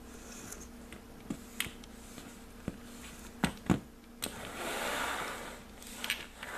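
Small glass jars with cork stoppers being handled on a tabletop: a string of light clinks and knocks as they are set down and shifted, followed about halfway through by a brushing rustle of an arm sliding across the table, then a couple more clicks.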